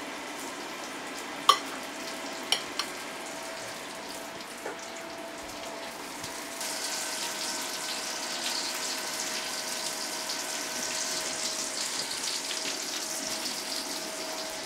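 Breaded schnitzels sizzling in fat in an iron frying pan. The sizzle gets louder and brighter about six and a half seconds in, after a few light clicks in the first three seconds.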